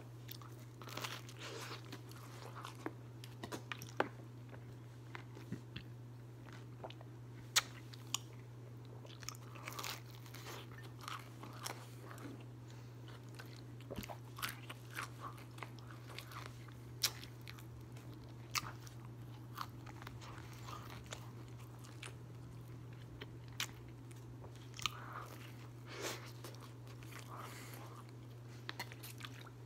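A person chewing and biting frozen pizza close to the microphone: irregular crunches and clicks, over a steady low hum.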